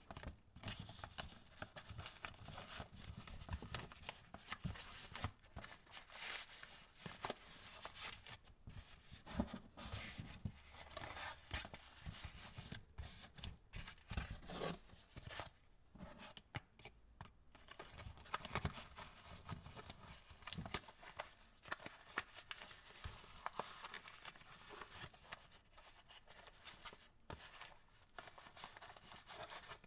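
Cotton-gloved hands handling and folding a black mesh fabric sleeve, making soft, irregular rustling and scratchy crinkling.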